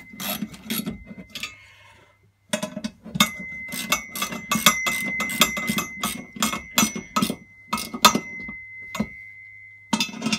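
Ratchet wrench with a 14 mm socket clicking in quick runs of about four clicks a second as it tightens the nuts holding a pillar drill's column flange to its cast base, with a short pause about two seconds in.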